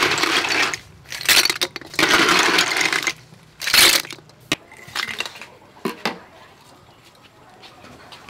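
Hard sea snail shells clattering against each other and a stainless steel mesh colander as they are tipped in and shaken, in several rough bursts over the first four seconds, then a few lighter clinks.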